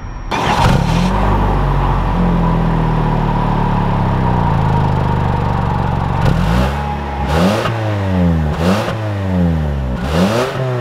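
2020 Toyota Camry AWD's 2.5-litre four-cylinder engine idling steadily, then revved in four quick blips about a second apart, the pitch rising and falling with each.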